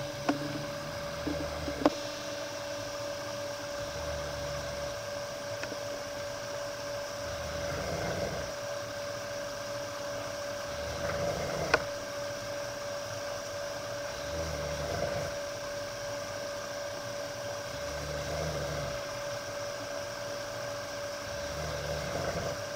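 A sleeping pet snoring in slow, even breaths, a low rumbly snore about every three and a half seconds, over a steady hum. Two sharp clicks stand out, one about two seconds in and one about halfway through.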